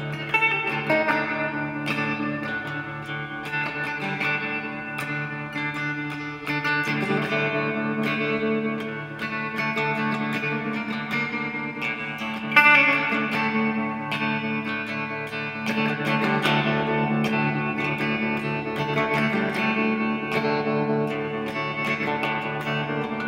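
Background music: guitar with effects, sustained chords under many plucked notes.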